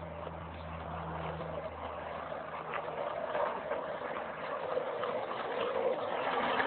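Skateboard wheels rolling on asphalt: a steady rolling noise that grows louder as the board comes closer. A low hum underneath fades out in the first couple of seconds.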